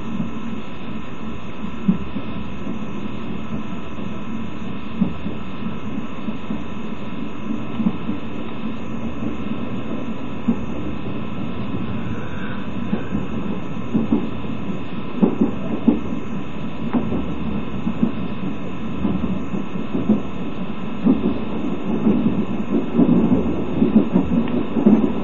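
Rail-joint clacks heard inside a moving passenger coach, over a steady low hum. The clacks come a few seconds apart at first and much more often in the last ten seconds.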